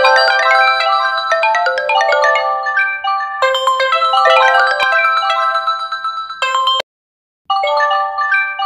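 Several phone ringtones ringing for incoming calls at the same time, their melodies overlapping into a dense tangle of notes. The ringing cuts off abruptly near the end, then starts again about half a second later.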